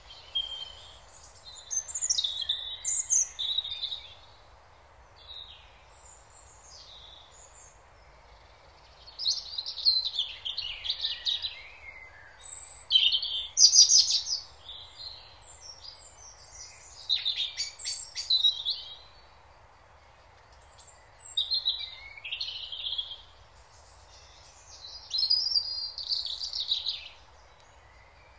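Songbirds singing: spells of quick, varied whistled phrases every few seconds, over a steady background hiss.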